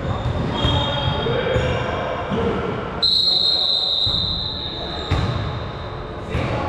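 Basketball bouncing on a gym court with short shoe squeaks and voices. About three seconds in, a long, high referee's whistle blast sounds for about two seconds.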